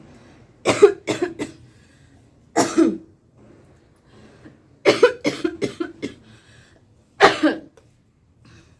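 A woman coughing in fits: a quick run of three or four coughs about a second in, a single cough, a longer run of several coughs a little past the middle, and one more near the end.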